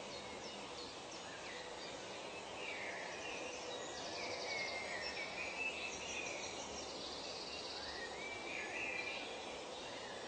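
Outdoor nature ambience: several birds chirping and calling in short, gliding phrases over a steady background hiss, with a fast, high, pulsing trill from about four seconds in to past seven seconds.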